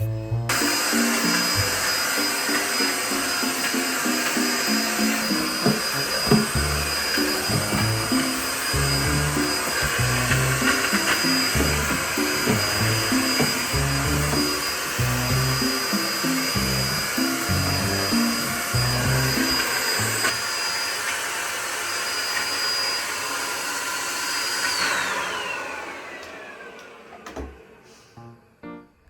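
Vacuum cleaner running steadily with a high motor whine. Near the end it is switched off: the whine falls in pitch and the noise fades as the motor spins down.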